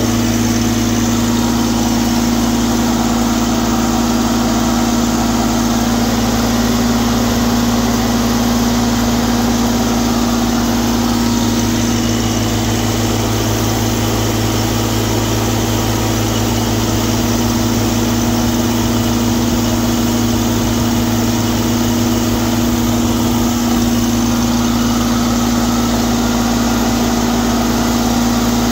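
Prochem carpet-cleaning machine with a Kubota WG750 three-cylinder gas engine running steadily while its wand sprays and extracts water: a steady engine hum under a broad rushing hiss.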